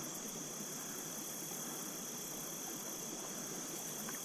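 Steady high insect chorus of crickets, an even unbroken trill, over the low rush of stream water.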